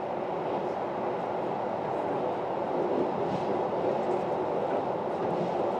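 Passenger train running through a rail tunnel, heard from the driver's cab: a steady, even rolling noise of wheels on rail with no clear rhythm.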